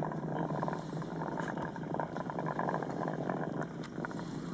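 Curling stone sliding over lake ice, a steady grinding rumble.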